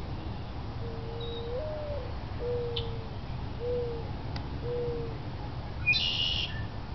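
A bird calling outdoors: one long note that rises partway through, then three shorter, lower notes about a second apart. Near the end a brief, louder, harsh call cuts in.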